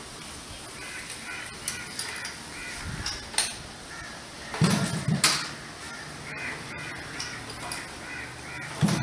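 Crows cawing in two quick runs of short repeated calls, with a few dull low thumps about halfway through and again near the end.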